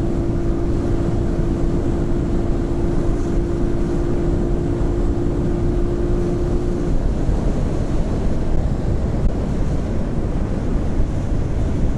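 Strong wind rushing and buffeting over a lavalier microphone while riding into a headwind at speed. A steady hum sits underneath and cuts off about seven seconds in.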